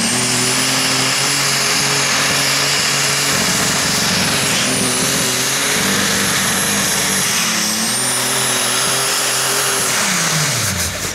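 Methanol-fuelled Super Stock pulling tractor engine running flat out at high revs while it drags the weight sled, with a high whistle over the engine note. Just before the end the engine note falls steeply as it winds down.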